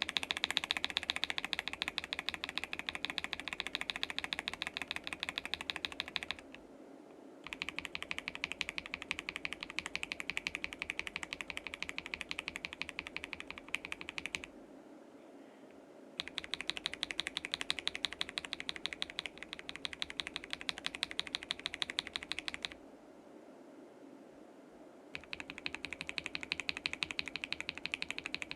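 Fast typing on a mechanical keyboard fitted with Akko CS switches, in four stretches of rapid key clicks with short pauses between them, each stretch a different switch.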